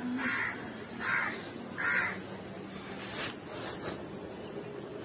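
A crow cawing: three harsh calls a little under a second apart in the first half, then it stops.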